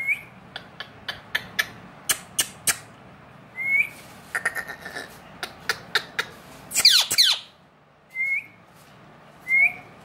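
Indian ringneck parakeet giving several short rising chirps and one loud squawk about seven seconds in, over a run of sharp clicks.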